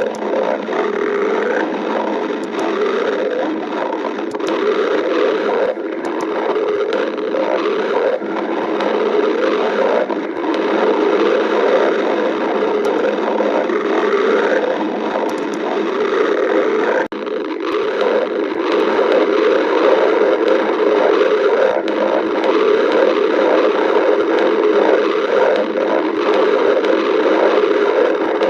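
Stomach growling: a continuous, irregular run of gurgles and rumbles over a steady hiss, with one brief break partway through.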